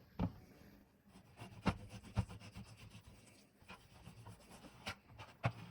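Kitchen knife cutting raw chicken in half on a cutting board: faint slicing and rubbing with about half a dozen scattered taps of the blade on the board.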